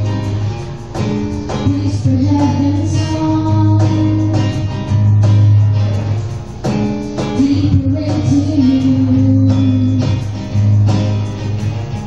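Live acoustic music: a strummed acoustic guitar over a steady cajon beat, with women singing into microphones.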